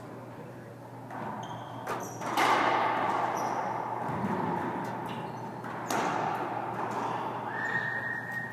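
Racquetball rally in an enclosed court: a few sharp echoing smacks of the ball off racquets and walls, with shoes squeaking on the hardwood floor.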